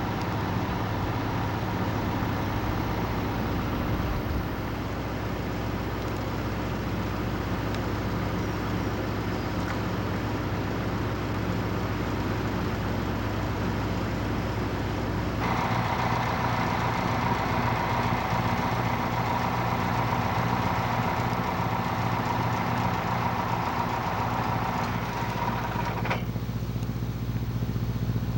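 Tour bus engine idling steadily. About halfway in a higher whining hum joins it, and it stops abruptly a couple of seconds before the end.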